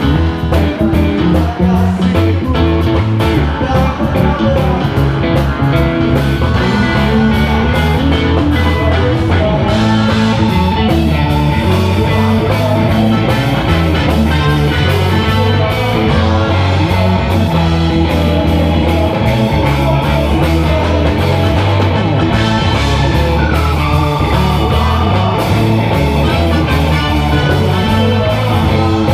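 Live band playing loudly: electric guitar and electric bass over keyboard and drums.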